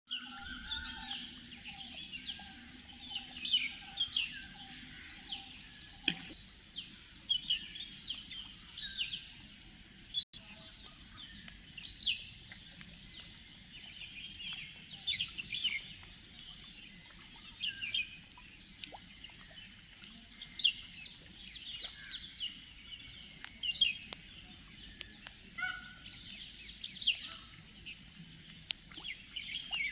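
Many small birds chirping and calling outdoors in short, sharp, high notes. For the first six seconds a lower call repeats over and over beneath them.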